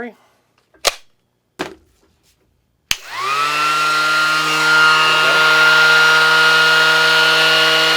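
Two clicks, then about three seconds in a Ryobi 18-volt One+ cordless 5-inch random orbital sander is switched on. Its motor spins up in a quick rising whine and runs steadily, free of any workpiece. Near the end it is switched off and begins to wind down.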